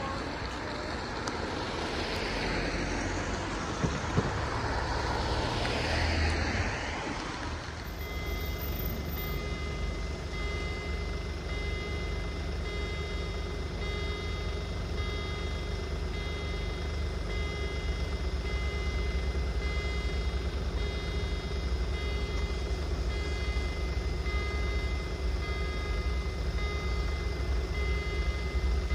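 Road traffic passing over the crossing for the first few seconds. Then, about eight seconds in, the railway crossing's electronic warning signal starts and rings on steadily with a high tone over a low steady rumble, announcing an approaching train.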